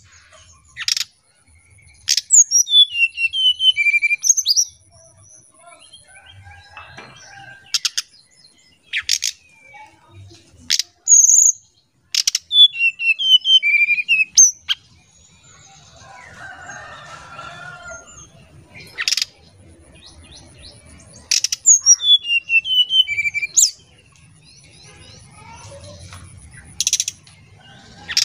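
Brown-chested jungle flycatcher calling: sharp single chip notes, and three times a quick falling run of short whistled notes.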